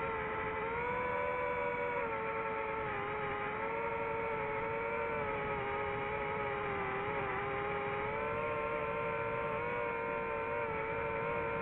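DJI FPV drone's motors and propellers whining steadily in flight, the pitch wavering slightly and dipping briefly about seven seconds in.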